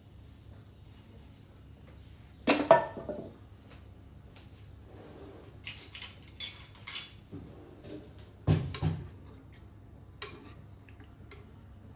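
Hard objects being handled: a few scattered clattering knocks and clinks, the loudest about two and a half seconds in and again about eight and a half seconds in.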